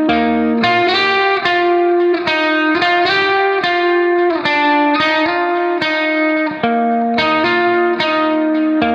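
Background music: a guitar playing a melody, with a new note about every 0.4 seconds.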